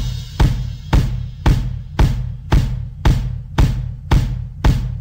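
Background rock music: a drum beat with a hard hit about twice a second over a low bass line.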